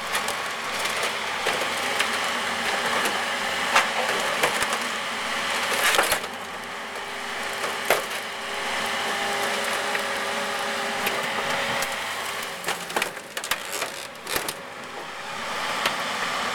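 Mercedes 300D car body being crushed and torn apart by an excavator: continuous crunching and cracking, with sharp cracks about 4, 6 and 8 seconds in and a run of cracks near the end.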